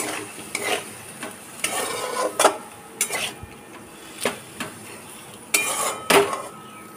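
Metal spatula scraping and knocking against a metal kadai in irregular strokes, every half second to a second, as vegetables and ground spices are stirred. Underneath is a faint sizzle of the masala being sautéed with a splash of water.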